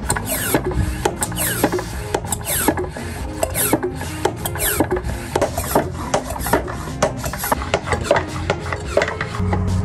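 Manual vacuum oil extractor pump being worked by hand, the plunger rasping, while used engine oil and air are drawn up through its clear suction tube with many short clicks, crackles and squeaks.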